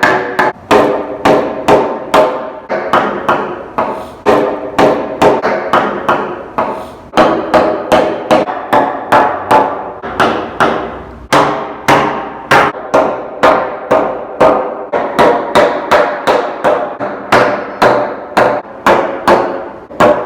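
Hammer driving nails into wooden floor joists: a steady run of blows about two to three a second, each with a short ringing tone, with brief pauses about seven and eleven seconds in.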